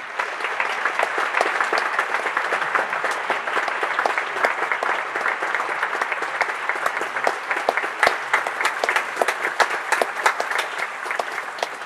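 Audience applauding, starting all at once, with single sharp claps standing out more toward the end.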